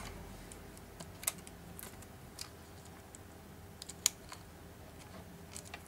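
Light clicks and taps of a plastic pry tool and fingertips on a tablet's internal parts and flex cable, with two sharper clicks, about a second in and about four seconds in.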